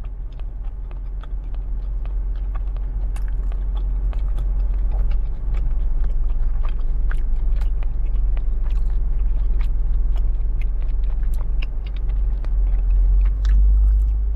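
Close-miked chewing and wet mouth clicks of someone eating chewy tteokbokki rice cakes off a fork. Under it runs a steady deep rumble, the loudest sound, like a car's engine idling.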